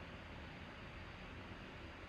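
Faint, steady hiss with a low hum underneath: room tone, with no distinct event.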